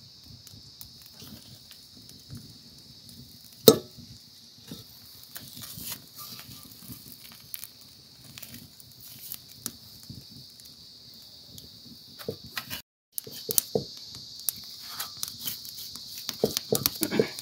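Insects chirring steadily over the crackle and small pops of a wood fire singeing a sheep's head and trotters, with one sharp pop about four seconds in. After a short break near the end, a knife scrapes and clicks quickly across the charred skin and hooves in a metal bowl.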